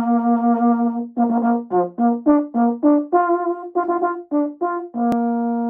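A solo brass instrument playing a call: a long held note, then a quick run of about ten short notes at changing pitches, ending on another long held note.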